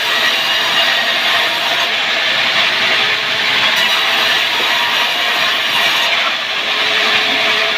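Powered wood saw running steadily: a loud, continuous mechanical noise with a few steady tones running through it.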